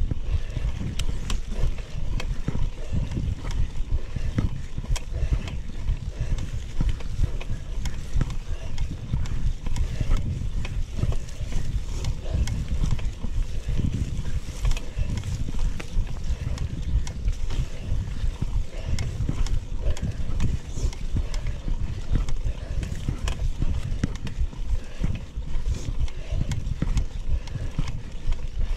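Mountain bike being ridden over a forest trail: a steady low rumble of wind buffeting the microphone and tyres on the ground, with frequent small knocks and rattles as the bike goes over bumps.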